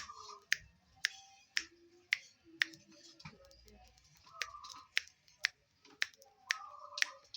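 Zebra dove (perkutut) cooing in short stepped notes, over sharp clicks that come about twice a second.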